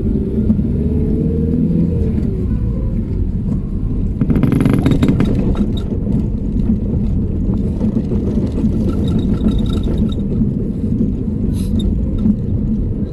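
Steady road and engine rumble heard from inside a moving car, with a louder rushing noise lasting a second or so, about four seconds in.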